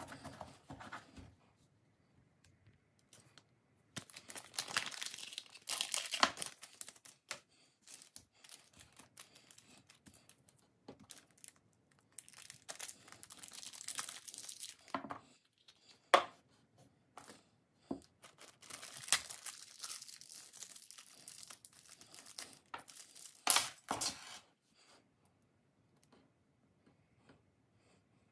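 Small plastic parts bags crinkling and rustling as they are opened and handled, in three bursts of a few seconds each, with a few sharp clicks.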